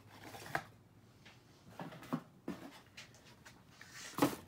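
Faint scattered clicks and rustles of hands handling things on a wooden workbench, then one louder short handling sound near the end as a knife in a paper sleeve is swung onto the bench.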